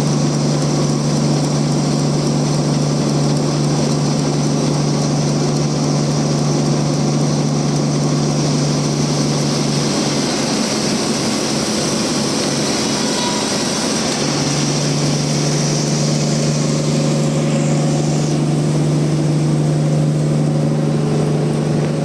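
Band sawmill running and cutting a trembesi (rain tree) log: a steady low motor hum with a high hiss from the blade in the wood. The hum eases for a few seconds in the middle, then comes back.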